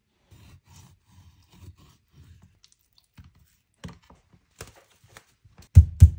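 Raw chicken breasts handled on a wooden cutting board: soft rustling and a few light taps. Near the end a metal meat tenderizer starts pounding the chicken flat through plastic wrap, a steady run of heavy knocks about three a second.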